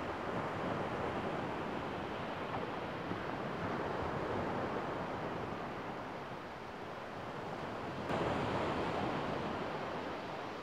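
Small sea waves washing onto a sandy shore: a steady rush of surf that ebbs and swells, louder for a few seconds from about eight seconds in.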